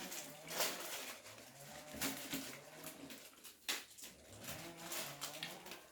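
Close-up eating sounds: wet chewing with sharp lip-smack and mouth clicks, broken every second or so by short, low, rising-and-falling hums.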